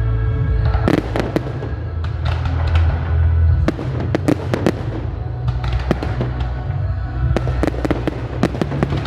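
Fireworks going off in quick succession, many sharp bangs and crackles, over loud music with a heavy bass.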